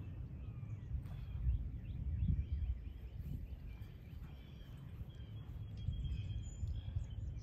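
Outdoor ambience: a low, uneven wind rumble on the microphone, with faint birds chirping in the background.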